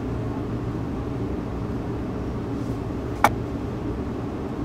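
Steady low hum of laboratory ventilation, with one sharp click about three seconds in as the chromatography column's glassware is handled.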